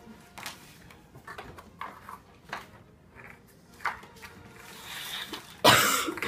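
Small plastic toys and paper being handled and set down on a wooden table: scattered light taps and clicks. Near the end comes one short, loud rustling thump.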